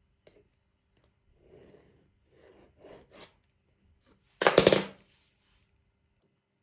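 Handling noises: a few short rubbing and scraping sounds, then, about four and a half seconds in, a loud rapid rattle lasting about half a second.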